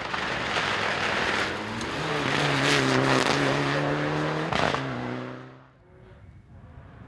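Rally car approaching and passing at speed, its engine held at high revs with a few sharp cracks. It falls away quickly about five and a half seconds in.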